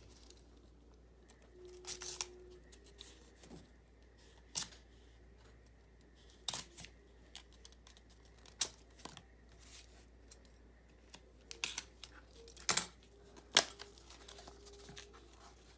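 Hands opening a mailed package: scattered sharp clicks and rustles of packaging, about ten standing out at irregular intervals.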